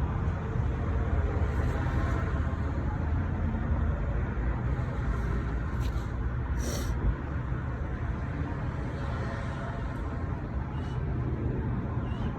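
Steady low background rumble with a few light clicks and one sharper knock about seven seconds in, as brake pads are handled and swapped in a disc brake caliper bracket.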